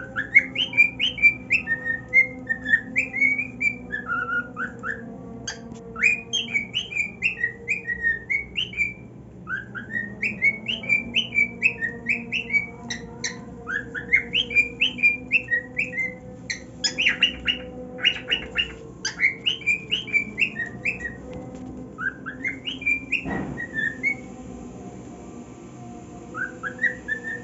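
Male cockatiel singing: phrases of quick whistled notes that slide up and down, with short pauses between phrases.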